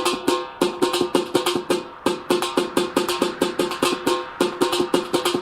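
Percussion-only passage of a Hindu devotional song: drums playing a fast, even rhythm with no singing, one drum stroke ringing with a steady pitch.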